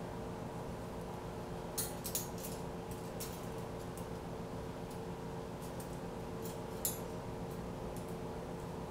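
Thin stainless steel wind spinner rings clinking and ticking against one another as they are shifted by hand, in scattered light clicks, a cluster about two seconds in and another near seven seconds. A steady low hum runs underneath.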